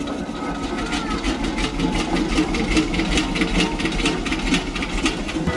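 Machinery running with a steady low rumble and a fast, even mechanical clatter.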